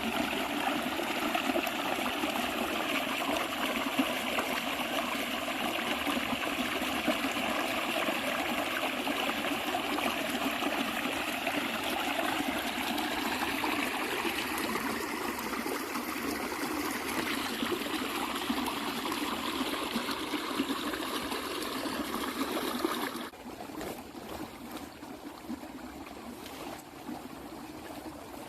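Running water flowing and trickling steadily; about 23 seconds in it becomes quieter.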